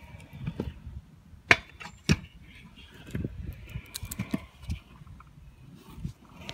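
Stunt scooter wheels rolling on concrete, with two sharp clacks of the scooter hitting the ground about a second and a half and two seconds in, and a few lighter knocks later.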